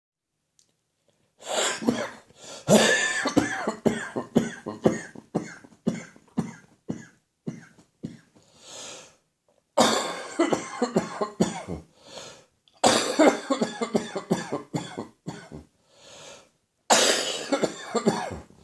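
A man's coughing fit from catarrh in his throat and chest: runs of rapid, harsh coughs in several bouts with short pauses between, starting about a second and a half in.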